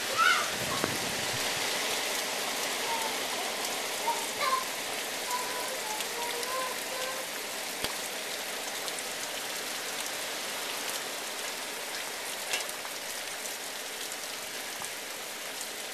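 Heavy hurricane rain pouring down in a steady downpour.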